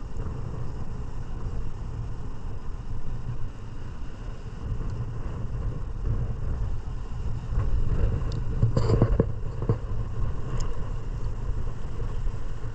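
Wind buffeting the microphone, giving an uneven low rumble, with a few louder gusts or knocks about eight to ten seconds in.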